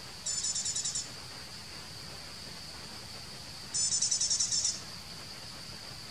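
Forest insects keeping up a steady high drone, broken twice by a louder, high, rapidly pulsed trill of about a second, roughly a dozen pulses a second, the trills about three and a half seconds apart.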